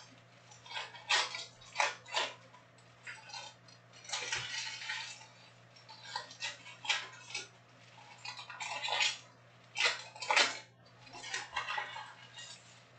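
Foil trading-card pack wrappers crinkling and rustling in irregular bursts as the packs are handled and shuffled.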